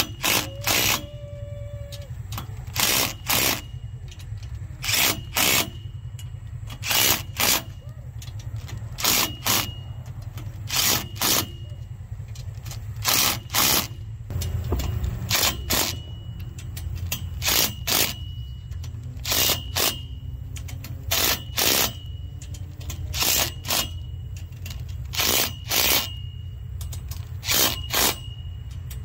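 Compact Milwaukee cordless impact driver snugging down clamp bolts in short trigger bursts, usually two quick bursts about every two seconds, over a steady low rumble.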